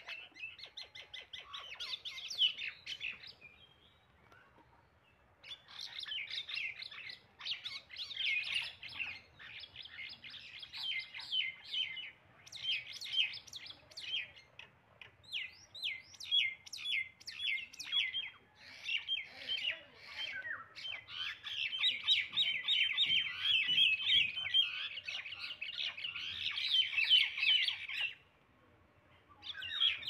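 Common mynas calling in dense runs of short, high, rapidly repeated calls, as two of them fight on the ground. The calls break off about four seconds in and again near the end.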